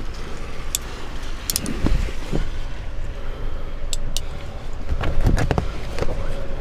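Scattered sharp clicks and knocks over a steady low rumble, with a cluster of knocks about five seconds in: handling noise around a car.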